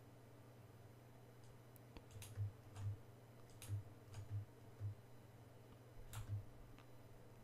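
About half a dozen faint, sharp clicks from a computer input device as the 3D model is worked on, each with a slight low thump, over a steady low hum.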